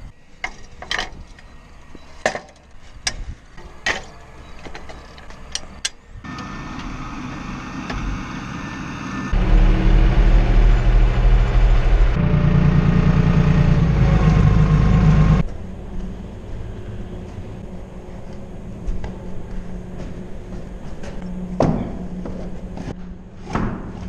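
A New Holland tractor's engine running loud and steady, heard from inside the cab, for about six seconds in the middle. Before it come a string of sharp knocks, and after it a quieter steady hum with a few knocks.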